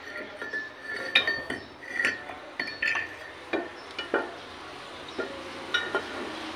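A string of sharp metal clinks and knocks, each with a brief ring, as a cylinder head is handled out of a lathe's four-jaw chuck and set down.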